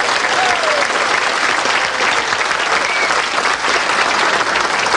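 Large audience applauding steadily, a dense crowd of hands clapping with a few voices faintly audible over it.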